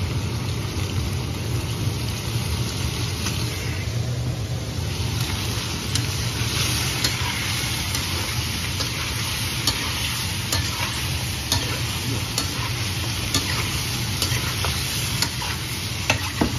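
Pork ribs sizzling in a wok while a spatula stirs and turns them, clicking and scraping against the pan every second or so. The sizzle gets louder about five seconds in, over a steady low hum.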